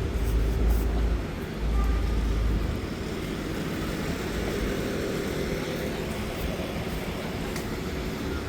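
City street traffic: a vehicle's low engine rumble for the first couple of seconds, then a steady hum of traffic.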